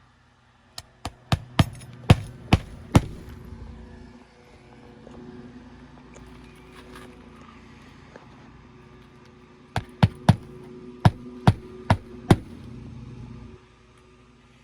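A hammer driving roofing nails through an asphalt shingle into the roof deck: two runs of about seven quick, sharp strikes each, several seconds apart. A lawnmower hums steadily in the background and stops near the end.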